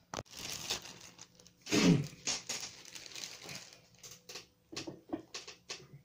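Handling noise from a hand-held camera being picked up and carried: rustling and rubbing on the microphone, with a run of short knocks and clicks and a brief falling tone about two seconds in.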